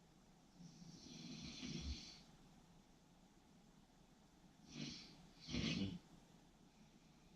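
A person snoring in sleep: one long snore on the in-breath about a second in, with a low rattle near its end, then two short breaths around five seconds in, the second louder.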